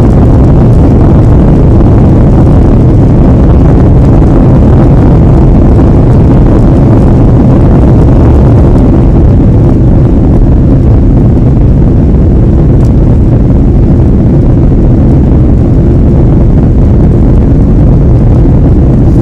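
Airliner climbing after takeoff: jet engine and airflow noise as a loud, steady low rumble.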